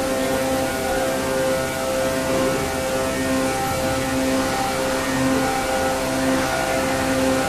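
Plastic injection moulding machine running, its hydraulic pump and motor giving a steady drone with a held whine over it.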